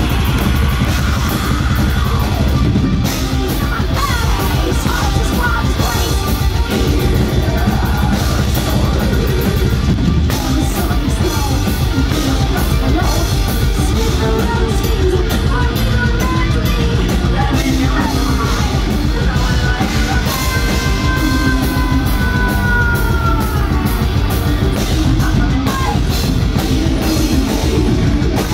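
Melodic death metal band playing live at full volume: rapid drumming, distorted electric guitars and harsh, yelled vocals.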